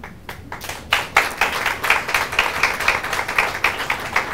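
Audience applauding, the clapping building up within the first second.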